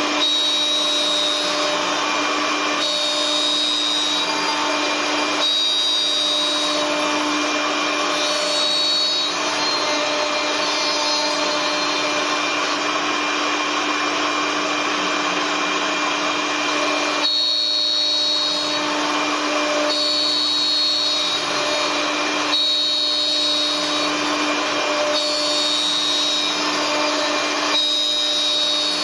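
Wood CNC turning lathe running: a steady machine whine with a hiss of cutting over it. The sound shifts in blocks every two to three seconds.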